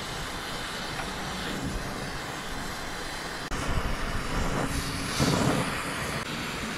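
Oxy-acetylene brazing torch flame hissing steadily as it heats a copper refrigerant line joint, getting louder about halfway through with its loudest swell a little past five seconds.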